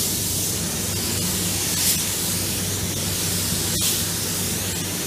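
Gravity-fed paint spray gun spraying base coat, a steady hiss of air and atomised paint with a low hum underneath. The hiss breaks for a moment about four seconds in.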